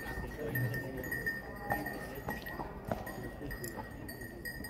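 Carriage horse's hooves clip-clopping, with a few clear strikes about half a second apart a couple of seconds in, over a murmur of voices.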